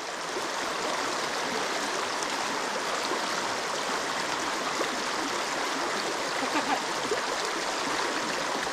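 Mountain stream running over rocks and riffles: a steady rush of water.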